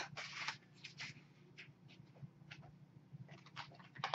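Scissors cutting through a paper plate: a string of short, irregular snips, faint.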